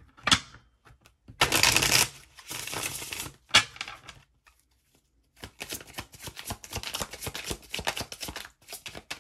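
A deck of tarot cards being shuffled: a couple of brisk sliding bursts in the first few seconds, a single snap, then a run of quick card flicks from about halfway to near the end.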